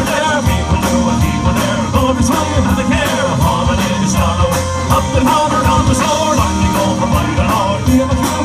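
Up-tempo rock music with a singing voice and a steady, driving drum beat.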